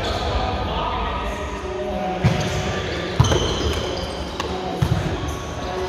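Volleyball rally in a large gym: a few sharp smacks of the ball being hit, the loudest a little over three seconds in, with a quick cluster near the end, over shoes squeaking on the court floor and players' voices echoing in the hall.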